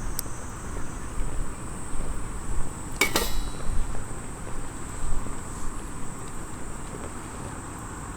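Crickets chirring steadily over a low outdoor rumble. About three seconds in comes a single sharp metallic clink that rings briefly, with a fainter click just before it at the start.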